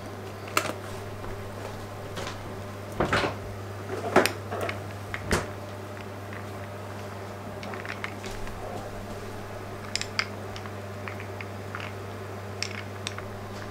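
A glass straw stirring an iced latte in a glass, clinking against the glass and the ice cubes in scattered light taps, over a steady low hum.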